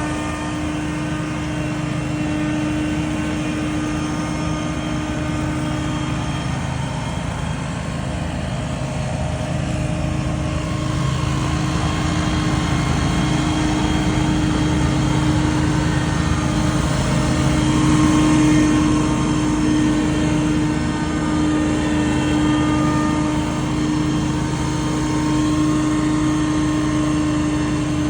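Scag Windstorm stand-on debris blower running at a steady high speed: a constant engine drone under the rushing whine of its big fan, swelling a little about two-thirds of the way through.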